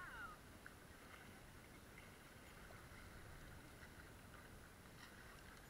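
Near silence: only a faint steady wash of sea water.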